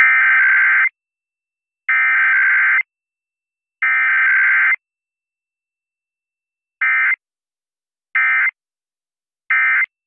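Emergency Alert System SAME digital data bursts coming over the radio: three bursts of about a second each carrying the header code, then three short bursts carrying the end-of-message code.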